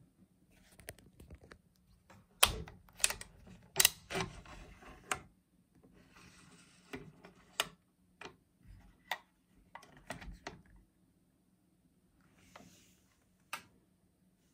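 Lee-Enfield No.4 Mk1 rifle being handled: a dozen or so sharp clicks and knocks at uneven spacing, the loudest in the first few seconds, with soft rustling between.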